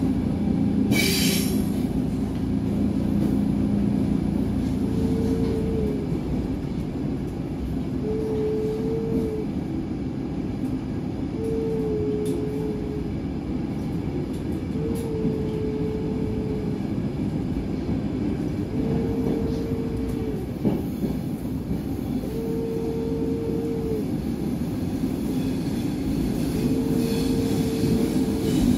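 Stockholm metro train running in a tunnel, heard from inside the car: a steady rumble of wheels and running gear, with a short whine about seven times, roughly every three and a half seconds, and a couple of clicks in the first second.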